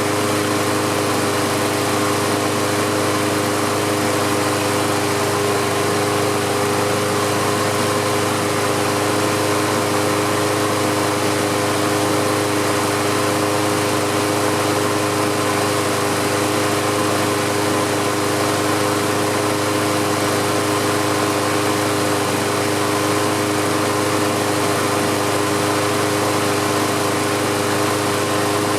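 Self-propelled push mower's small engine running steadily at an even speed. It keeps running now that tapping on the carburetor bowl has freed the stuck float and needle valve.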